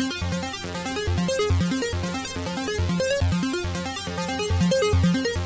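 Electronic synth loop, comb-filtered through a de-masking delay rack: a bass note about twice a second with a stepping synth melody and ticks above it. The comb filtering colours and thins the original sound.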